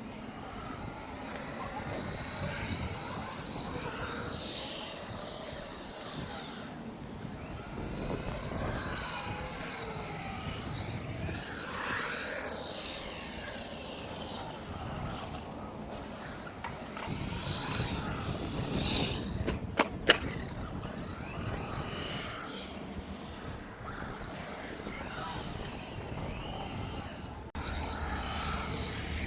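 Brushed 380 electric motor and 4WD drivetrain of an HBX 18859E 1:18-scale RC truck whining, its pitch rising and falling with throttle, over tyre and gear noise. There is a sharp knock a little after twenty seconds in.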